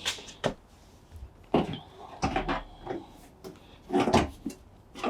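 Irregular knocks, clicks and scrapes of plastic and metal washing-machine parts as a panel is worked onto its plastic tabs, with several separate handling bumps, the loudest about four seconds in.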